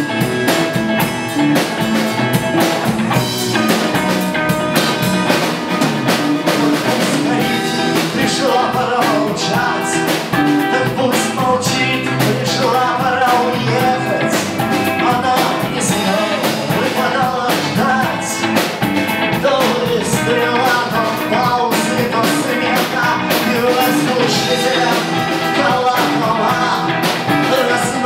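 Rock band music with guitar and drum kit playing steadily.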